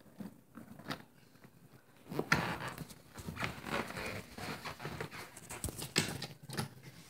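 Close handling noise: a few light clicks, then from about two seconds in a busy run of knocks, rustling and clatter as the camera is moved about and wooden toy track and toys are shifted close to the microphone.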